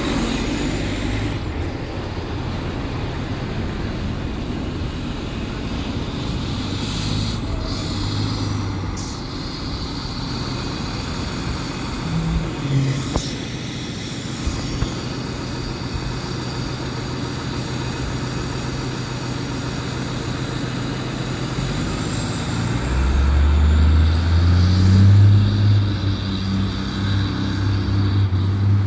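Fire truck's diesel engine running, with a louder, deeper engine note building near the end as the truck pulls away.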